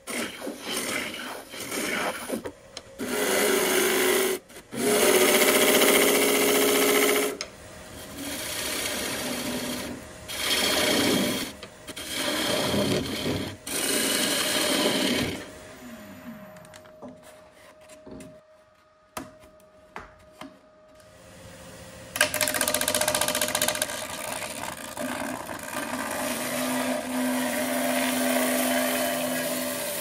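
Bowl gouge cutting a spinning wooden bowl blank on a wood lathe, taking repeated passes that each give a rough shaving hiss. Partway through, the cutting stops for several seconds and only a faint steady hum is left, then the cutting starts again.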